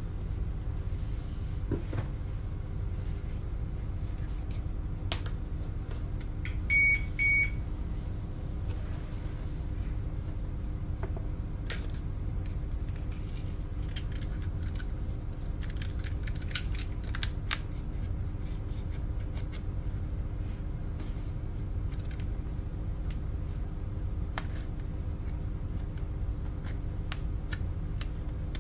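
Two short high electronic beeps about seven seconds in. After them come scattered clicks and scrapes of a snap-off utility knife slitting the seal on a cardboard box, over a steady low hum.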